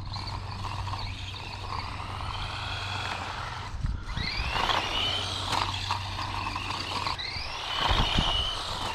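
Electric motor of a 1/18-scale DEERC 9310 RC truck whining as it drives, rising in pitch as it speeds up about halfway through and again near the end. Scattered knocks and rattles come from the truck running over rough ground.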